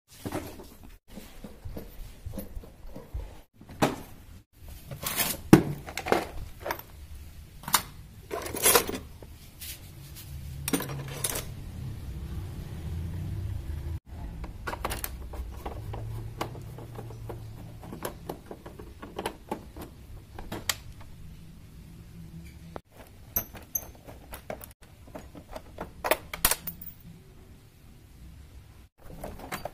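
Metal hand tools and small parts clinking, clanking and knocking, from rummaging in a plastic toolbox and working on a motorcycle with a screwdriver. The result is a string of separate sharp clicks and clanks, with a low hum under the middle part.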